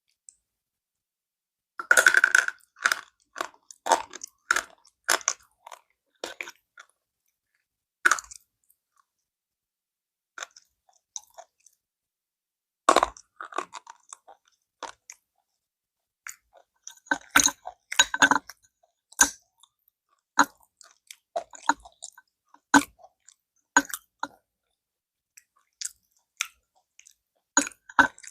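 Slate pencils being bitten and chewed: a loud crunching bite about two seconds in and another near the middle, each followed by runs of crisp, gritty chewing crunches with short pauses between.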